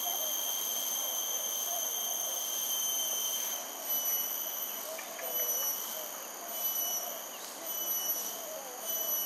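Steady high-pitched insect drone that breaks into a regular pulsing about three and a half seconds in, over a faint wavering murmur.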